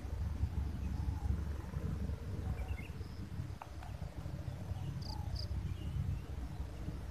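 Outdoor ambience: a steady low rumble with a few faint, short high chirps scattered through it, and a single click about three and a half seconds in.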